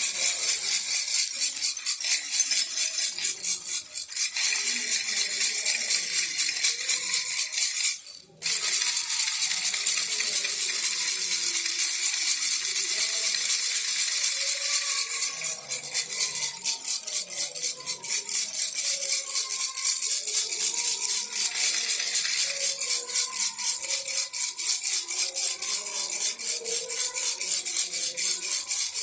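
Baby rattle shaken rapidly and continuously, a dense bright rattling that breaks off briefly about 8 seconds in, then resumes.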